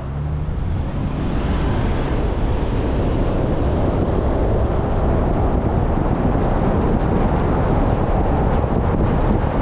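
Road and wind noise of a moving car, building over the first second or two as it gathers speed, then a steady rush.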